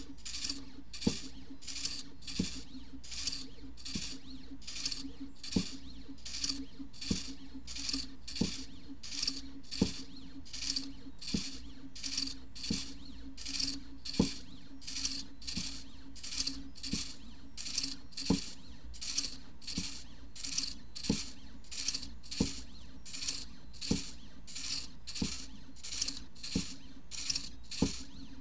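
midTbot ESP32 pen plotter drawing with a gel pen on paper. Short scratchy strokes repeat at about one and a half a second, with a sharp tick about every second and a half over a steady low hum.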